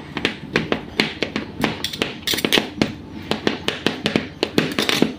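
Metal spoon mashing boiled sweet potato on a plate: irregular taps and clinks of the spoon striking the plate, about three a second.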